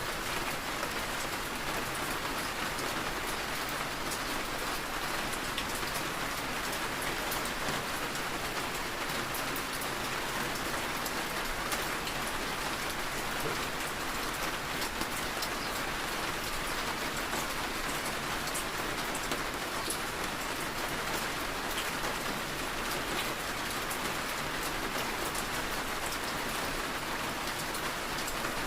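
Steady rainfall: an even hiss of rain with many small scattered drop taps, holding the same level throughout.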